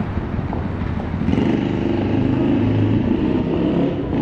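Street traffic: a motor vehicle's engine running as it passes, growing louder about a second in.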